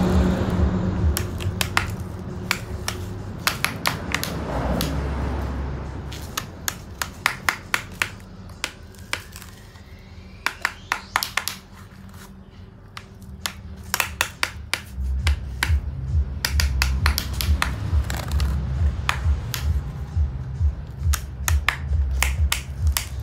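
Plastic toy excavator's arm and bucket clicking again and again as they are worked by hand to dig in sand, with a low rumble that comes and goes, loudest in the last third.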